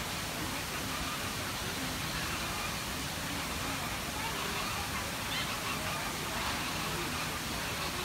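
Steady outdoor background hiss with faint distant voices and a few faint bird calls.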